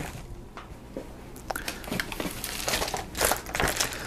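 Plastic product packaging being handled, crinkling and rustling in scattered spells of crackles, busiest about two seconds in and again towards the end.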